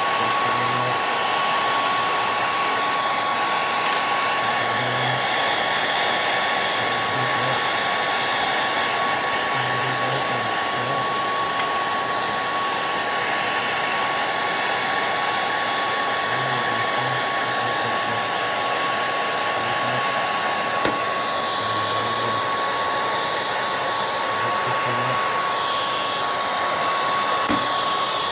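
Small electric blower running steadily: a constant rush of air with a steady whine.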